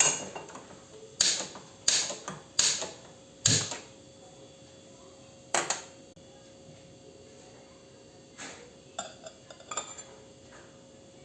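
Kitchen clatter of pans and utensils: a run of sharp knocks and clanks, about five in the first four seconds, then a few more spaced out, over a faint steady hum.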